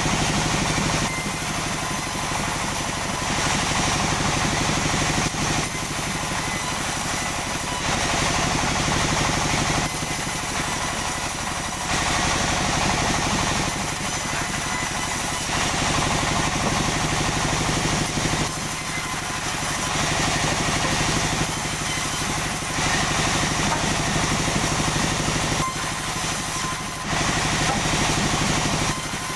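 Sawmill machinery running steadily: an engine hum under a loud high hiss, the sound shifting every two to three seconds.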